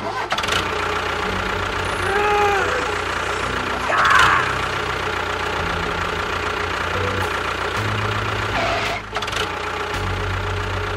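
A small motor running steadily with a buzzing hum, starting suddenly. A few short pitched sounds rise and fall over it about two and four seconds in.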